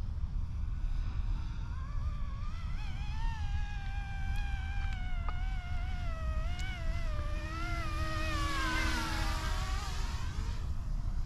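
Yuxiang F09-S Jayhawk RC helicopter in flight: a motor-and-rotor whine that wavers in pitch as the throttle changes. It swells as the helicopter passes close, then drops in pitch as it flies by near the end. Wind rumbles on the microphone underneath.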